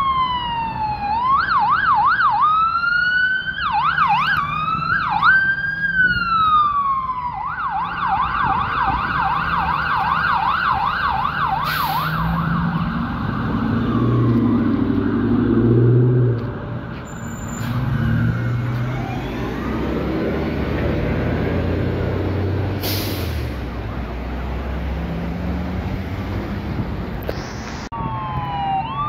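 BC Ambulance siren switching between slow wail glides and quick yelp sweeps, then holding a fast, steady yelp for several seconds before stopping about halfway through. A city transit bus then passes with its engine rumbling and tyres on the road. Just before the end a siren wail starts rising.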